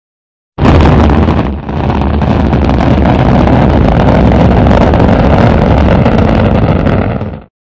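Rocket engine sound effect: a loud, dense rumble that starts suddenly, dips briefly about a second later, then runs steadily and fades out near the end.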